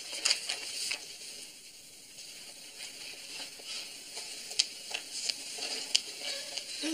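Faint steady hiss with scattered soft clicks and taps, a little louder in the first second and with a few sharper ticks in the last few seconds.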